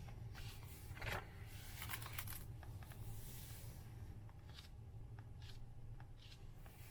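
Paper rustling as the pages of a hardcover book are turned and handled: a few short rustles, the loudest about a second in and again around two seconds, then a few faint ticks, over a low steady hum.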